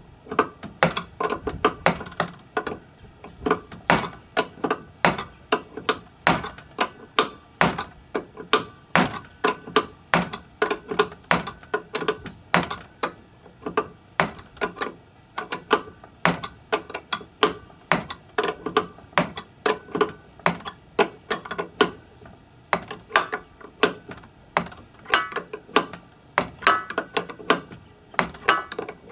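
A steady run of sharp metallic clicks and knocks, about two a second, from the parts of a Hosetract LB-330 hose reel being fitted back together by hand, with a short ringing near the end.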